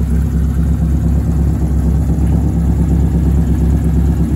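Straight-piped, naturally aspirated 2.2-litre four-cylinder with individual throttle bodies in a Nissan S13 Silvia, idling steadily after running long enough to come up to temperature.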